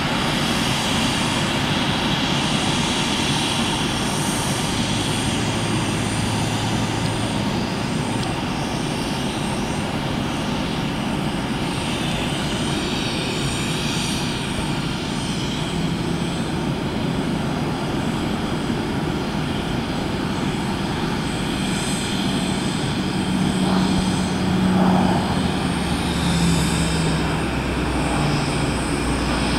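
Vintage piston-engined propeller aircraft flying nearby, a steady engine drone that swells briefly about five seconds before the end.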